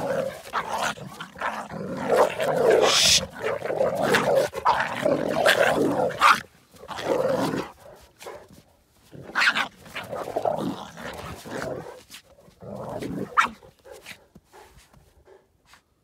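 Dogs fighting: growling and snarling in a dense scuffle through the first six seconds, then in shorter separate bouts that die away near the end.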